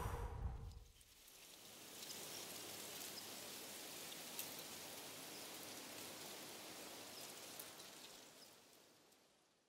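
A short loud rush of sound fading out within the first second, then steady rain with a light patter of scattered drops, fading away near the end.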